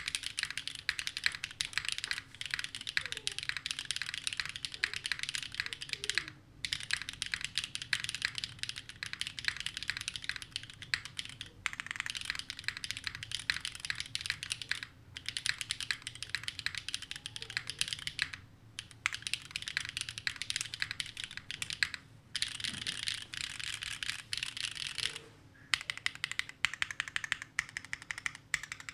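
Fast, continuous typing on a mechanical keyboard with Gateron Sage linear switches, a dense run of keystroke clacks broken by about six brief pauses.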